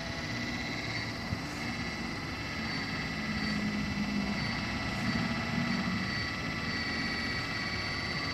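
Radio-controlled model excavator running as it moves its boom and arm: a steady motor whine with a lower hum that swells in the middle and then settles.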